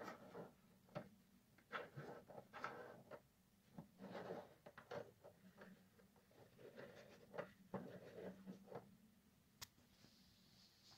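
Faint, irregular taps and scraping of hen's eggs being rolled over by hand on the plastic mesh tray of a foam incubator, turned for incubation. The sounds thin out near the end, with one sharper click.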